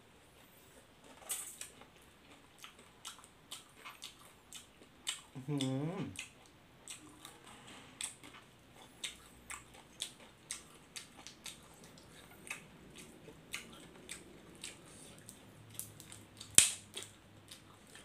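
Close-up eating sounds from chewing raw fish and grilled prawn: frequent small mouth clicks and smacks. A short vocal sound comes about five and a half seconds in, and a single sharp click sounds near the end.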